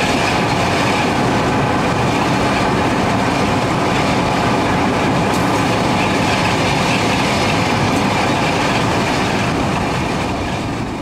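Two Victorian Railways T-class diesel-electric locomotives, T342 and T378, passing close by under power, with engine noise and their wheels running over the rails. The sound fades away near the end.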